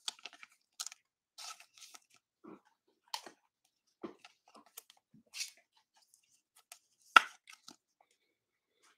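A trading card being handled with a clear plastic card holder: scattered soft rustles and small clicks, with one sharper click about seven seconds in.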